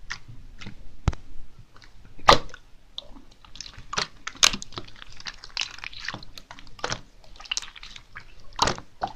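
Slime with mixed-in add-ins being squeezed and stretched by hand: irregular wet squishing with sharp clicking pops and crackles, a few louder pops among them.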